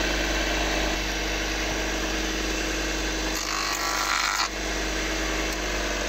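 Electric bench motor driving a grinding stone runs with a steady hum while a shoe heel is ground down to shorten it. About halfway through, the heel is pressed harder against the stone for about a second, and a harsher, louder grinding sound rises over the hum.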